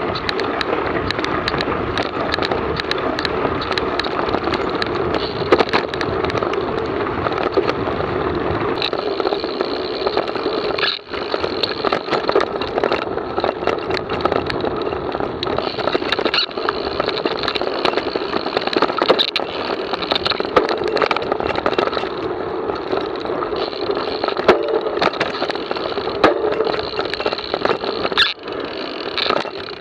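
Mountain bike being ridden over a gravel road and dirt trail, heard from a camera mounted on the bike: steady tyre and rolling noise with frequent sharp rattles and knocks from the rough ground. The sound breaks off briefly about eleven seconds in.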